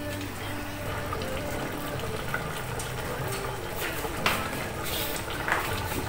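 Liquid cooking in a pot, pouring and bubbling, with a couple of sharp knocks of a utensil against the pot about four and five and a half seconds in.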